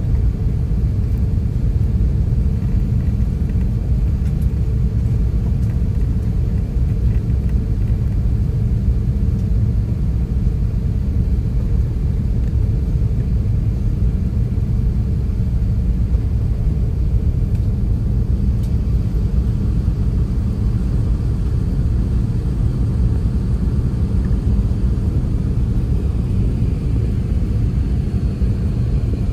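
Airbus A380 cabin noise in flight: a steady low rumble of the engines and the airflow, heard from inside the cabin at a window seat.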